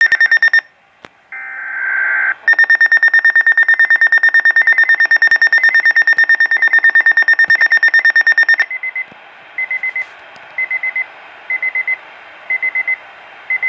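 Weather alert radio going off for a severe weather bulletin: a brief burst of digital data tones, then a fast-pulsed high electronic alarm beep for about six seconds. It then drops to radio hiss with short groups of beeps about once a second.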